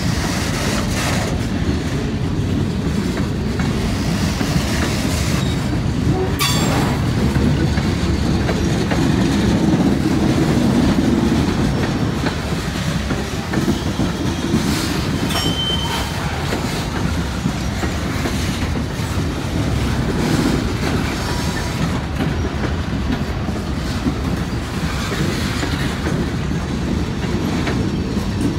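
Freight train cars rolling past: a steady heavy rumble with the clack of wheels over rail joints, and one short high wheel squeal about halfway through.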